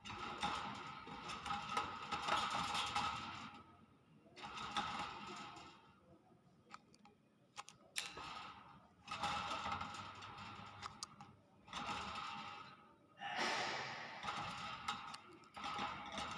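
Myna making a run of raspy, breathy cough-like sounds: about six bursts, each one to three seconds long, with short pauses between.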